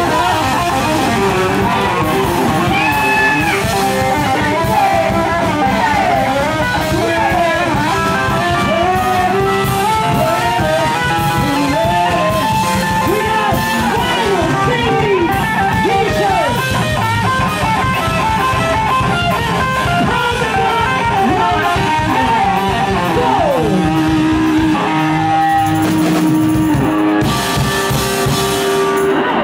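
Live rock band playing loud: electric guitars with bending, sliding notes over bass and a pounding drum kit. About 24 seconds in the band settles onto a held chord, with a wash of crashing cymbals over the last few seconds, typical of a song's big ending.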